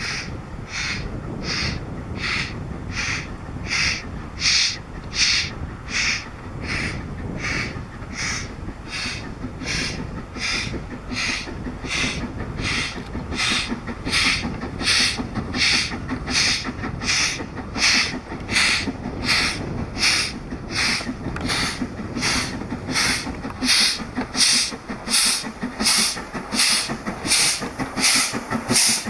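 LMS Coronation Class 4-6-2 steam locomotive 46233 'Duchess of Sutherland' working hard toward the listener. Its exhaust beats come as steady hissing chuffs, about two a second, growing louder as it draws near.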